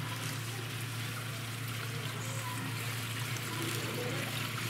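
Water running and trickling steadily in a rocky stream and pool, with a low steady hum underneath.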